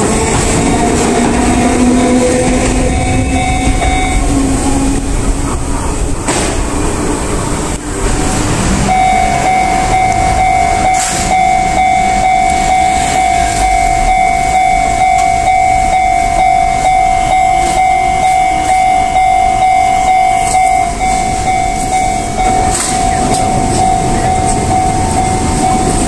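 Japanese level-crossing warning bell sounding while Enoshima Electric Railway (Enoden) trains pass. In the first seconds a train rolls through the crossing with a motor whine rising in pitch. From about nine seconds in, a crossing bell rings steadily and another train comes into the crossing near the end.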